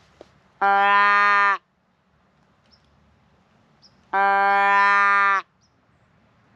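Deer call blown by mouth, sounding a doe bleat twice: two steady, even-pitched calls of about a second each, the second a little longer. It imitates a whitetail doe's bleat to draw a buck closer.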